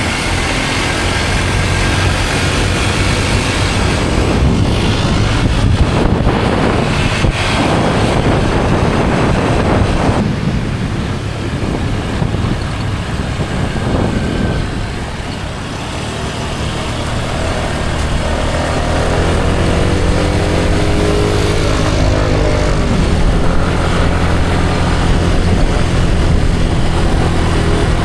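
Scooter engine running while riding, with wind and road noise. The engine pitch wavers up and down for a few seconds past the middle.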